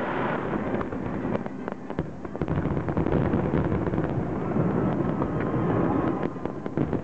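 Aerial fireworks shells bursting: a series of sharp bangs and crackles that thicken about two and a half seconds in into a dense, continuous rumble of overlapping bursts.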